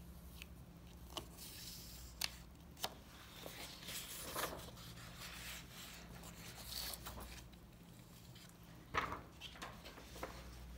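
Paper rustling and a few sharp clicks as a printed booklet is handled and its page turned, over a low steady hum.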